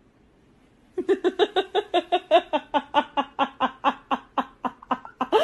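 A cat making a fast, even run of short, laugh-like chirping calls, about seven a second, starting about a second in and lasting some four seconds.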